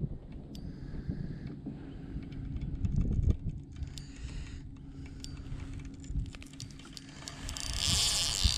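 Rod-and-reel and boat handling noise while a big fish is played on the line: low knocks and scattered sharp clicks over a faint steady hum. Near the end a hiss builds up.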